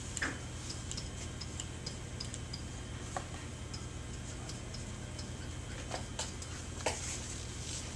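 A stylus clicking and tapping on an interactive whiteboard as words are written: light, irregularly spaced ticks with a few harder knocks, over a steady low hum.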